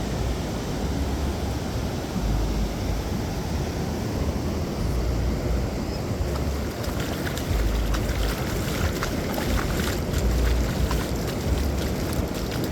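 Wind buffeting the microphone in uneven gusts over a steady wash of ocean surf.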